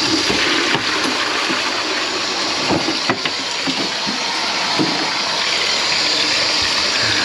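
Water running steadily from a kitchen faucet into the sink, with a few light knocks.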